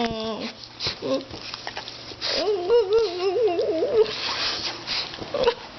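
A pet dog whining, with a wavering, warbling whine from about two to four seconds in, among scattered clicks and rustling.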